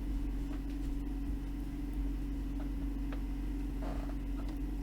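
Steady workshop hum with a few faint, scattered clicks.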